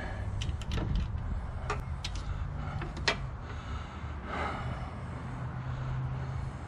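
Light clicks and taps of hands working the wiring loose at a riding mower's starter motor, with one sharper click about three seconds in, over a low steady hum.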